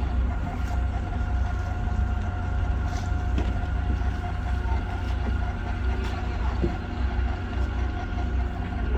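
Sightseeing ship's engine and machinery running on board: a deep, steady rumble with a constant high hum over it.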